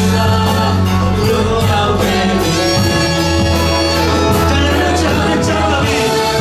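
Live worship band playing a song in Burmese: several voices singing together over acoustic guitar, electric guitar and keyboard, with a steady beat.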